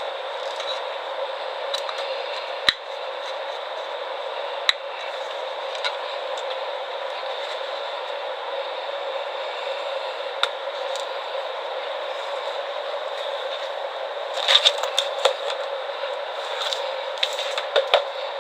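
Electrical wire being handled and fastened onto a lamp holder: scattered small clicks and scrapes, bunching together near the end, over a steady hiss.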